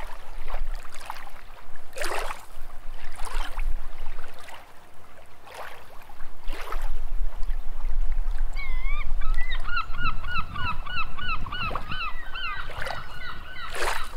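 Gulls calling over a low steady rumble. There are scattered single harsh cries at first. From about eight seconds in comes a rapid run of repeated yelping notes, about four a second, for some four seconds.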